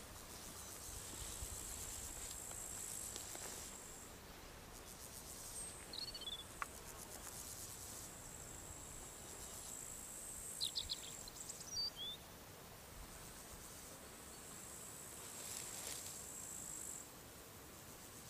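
Crickets trilling high and steady in spells of a few seconds each, three times, with a few short bird chirps in between.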